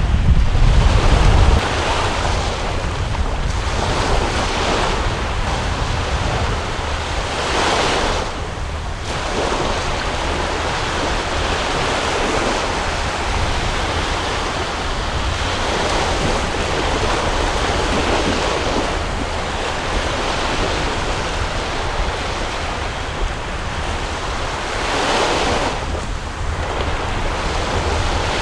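Wind buffeting the microphone over the steady wash of a choppy sea, heaviest as a low rumble in the first second or so, with louder gusts about a third of the way in and again near the end.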